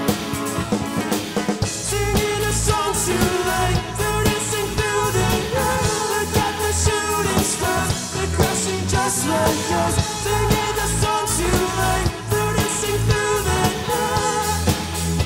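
Rock band playing live: electric guitars, electric bass and drum kit, with a male lead vocal singing over them.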